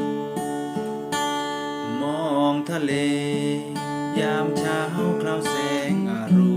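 Acoustic guitar music, strummed and plucked, with a melody line of bending, gliding notes over it around the middle.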